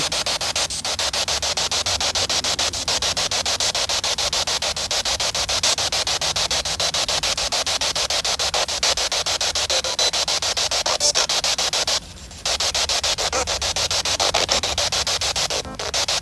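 Handheld spirit box sweeping through radio frequencies: a steady hiss of radio static, rapidly chopped by the scan, over a low hum. It cuts out for about half a second about twelve seconds in.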